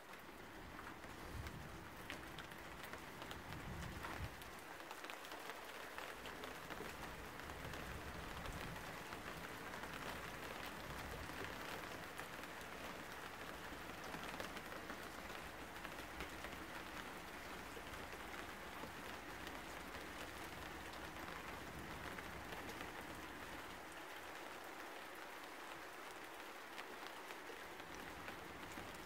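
Rain falling steadily, heard faintly as an even hiss scattered with small ticks of drops.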